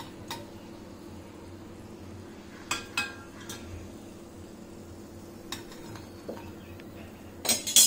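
Steel slotted spoon clinking against a ceramic plate and the frying pan as fried samosas are lifted out and set down: a few scattered sharp clinks, some ringing briefly, with the loudest clatter near the end.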